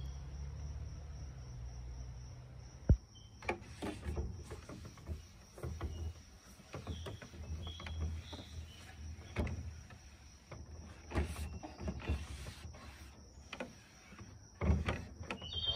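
Faint outdoor ambience: a low rumble with scattered clicks and knocks, the sharpest about three seconds in, and a few short high chirps.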